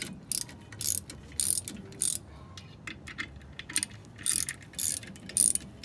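Ratchet wrench clicking in short bursts as bolts are turned into the threaded holes of a brake drum to push the drum off the hub.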